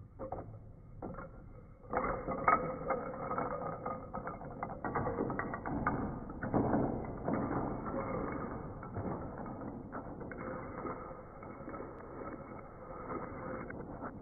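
Wooden pencils from a stacked tower clattering onto a desk as it collapses, played back slowed down: a few knocks at first, then from about two seconds in a dense, drawn-out run of low knocks and rattles.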